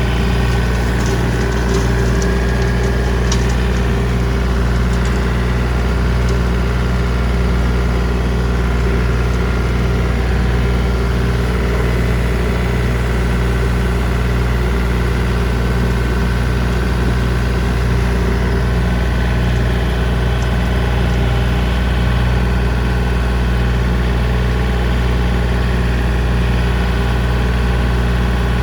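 John Deere 3025D compact tractor's three-cylinder diesel engine running steadily under load while it drives a brush hog (rotary cutter) in low-range first gear. A few light clicks sound in the first few seconds.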